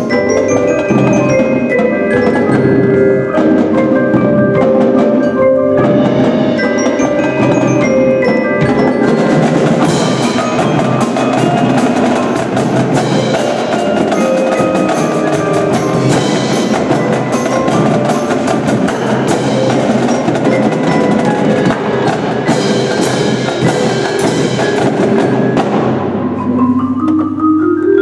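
Percussion ensemble playing: marimbas and other mallet keyboards together with a drumline of snares, tenors and bass drums, plus cymbals. The mallets carry the opening, the drums and cymbals come in about a third of the way through, and near the end the keyboards start a rising run.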